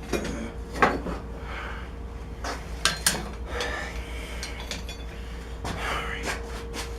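Irregular metal clinks and clanks of forge tools and the steel workpiece being handled and knocked together, several sharp knocks a few seconds apart, over a steady hum.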